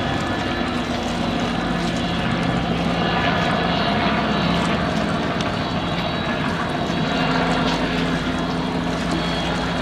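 A motor running steadily, a low even drone with a few held tones over a broad rushing noise.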